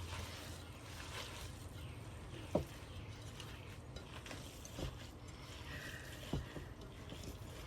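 Meatloaf mixture being worked in a mixing bowl, with three soft thumps about two seconds apart.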